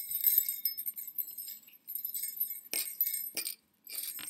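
Small metal jingle bells on a sequinned Christmas stocking jingling as the stocking is shaken, in a few short bursts with brief pauses between, along with a few rustles of the cloth.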